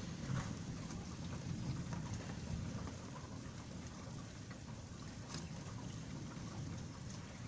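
Steady rain falling during a thunderstorm, with a few scattered drop ticks and a low rumble that is a little stronger in the first few seconds.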